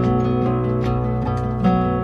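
Background music led by plucked acoustic guitar, with notes struck at a steady pace.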